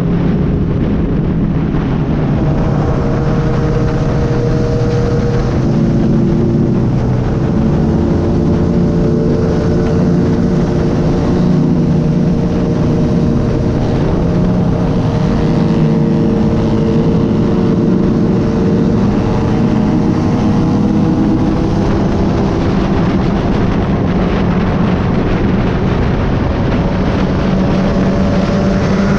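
Sport motorcycle engine running steadily in sixth gear at highway cruising speed, with a strong rush of wind over the microphone.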